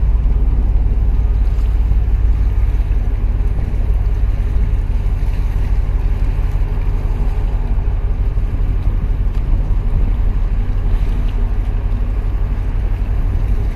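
Steady low rumble of a large container ship under way close by, mixed with wind buffeting the microphone and water washing against the breakwater.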